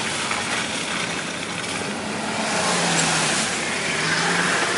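Car driving, with road noise and engine hum heard from inside the cabin. The noise swells in the second half as the car passes close by a pickup truck.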